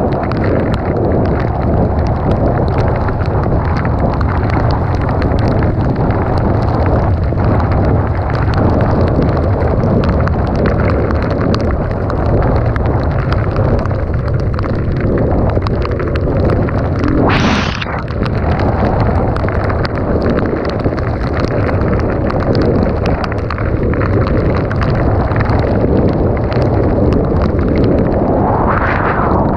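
Dirt bike engine running under way, with heavy wind buffeting on the microphone. Near the end there is a rising sweep, like the engine revving up.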